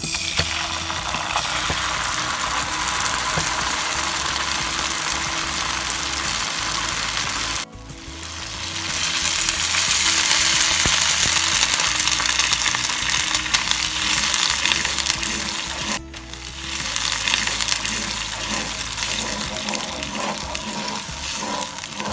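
Minced garlic and tomato ketchup sizzling in hot oil in a frying pan, stirred with a wooden spatula near the end. The sizzle breaks off sharply twice.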